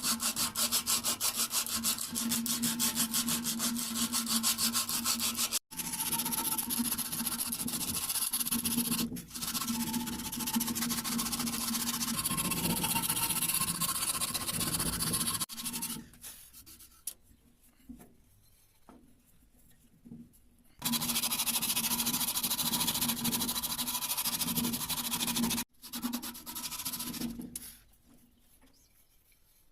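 Hand tool rubbing on wood in fast, repeated strokes, like rasping or sanding. It comes in several abruptly cut stretches with quieter gaps between them.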